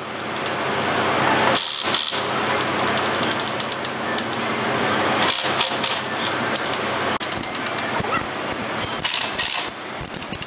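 Cordless impact wrench hammering the oil pan bolts off a UAZ 469 engine block, in several bursts with short pauses as it moves from bolt to bolt.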